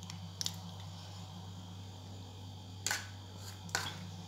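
Three light clicks of a metal spoon and plastic yogurt cup being handled, over a steady low hum.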